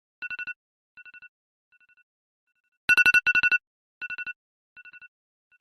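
Electronic alarm beeping in quick clusters of about four sharp beeps each, on one high two-tone pitch. A pair of loud clusters comes about three seconds in. Each is followed by quieter repeats that fade away like an echo.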